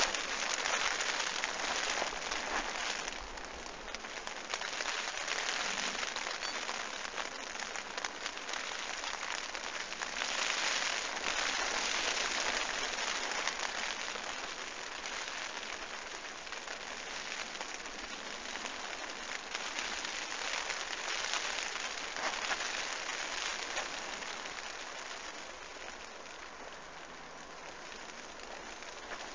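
Rain falling on the bivvy canopy and the ground around it: a dense, crackly hiss of drops that swells and eases, heaviest in the first few seconds and again about ten seconds in, and easing off toward the end.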